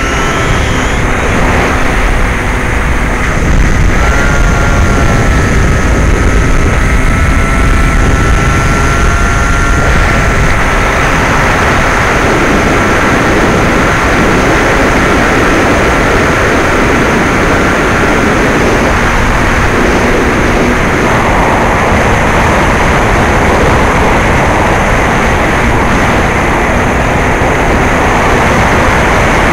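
Electric RC plane's brushless motor (NTM 35-30A 1400kv) spinning a 9x6 propeller, whining over the rush of airflow, heard from on board the plane in flight. The whine rises in pitch about 4 seconds in, holds steady, then fades out after about 18 seconds, leaving only the wind rush, as if the throttle is pulled back to glide.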